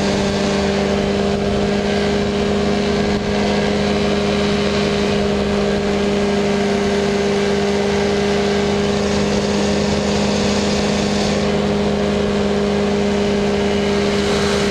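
Powered parachute's engine and propeller droning at a steady cruise setting, one unchanging pitch, with a rush of wind over it.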